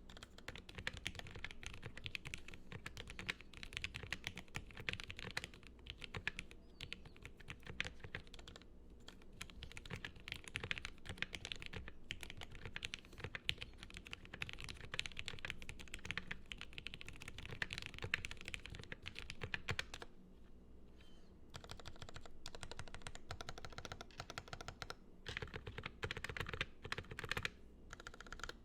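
Fast continuous typing on a Noxary Vulcan gasket-mounted custom mechanical keyboard with lubed Gateron Yellow linear switches and CRP APL keycaps: a dense run of keystrokes with short pauses about a third and two thirds of the way through.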